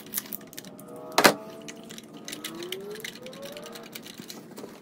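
Ratchet wrench with a 14 mm deep socket clicking in quick runs as a spark plug is backed out of the cylinder head, with one sharp clack about a second in, then lighter, sparser clicks as the socket is turned by hand.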